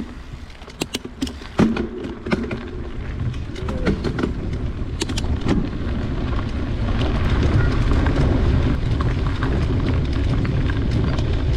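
Wind rumbling on the microphone of a camera on a moving mountain bike, with tyres rolling over a dirt trail. Sharp clicks and rattles from the bike come about one to two seconds in and again around five seconds in. The rumble grows louder after about six seconds.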